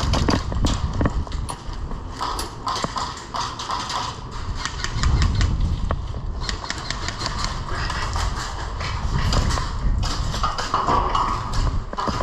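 Footsteps and rattling gear of a player moving on foot, picked up close on a body-worn camera microphone: irregular knocks and clicks over a low rumble of movement.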